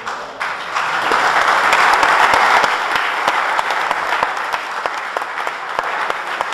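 Audience applauding, swelling about half a second in and slowly tapering off, with single claps standing out.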